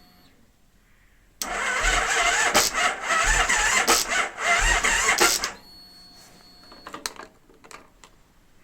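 Kawasaki Vulcan 1600 V-twin's electric starter cranking the engine slowly and laboriously for about four seconds, heaving over a compression stroke roughly every two-thirds of a second and never firing: it struggles to turn over against compression even on a jumped car battery. A few sharp clicks follow about two seconds after it stops.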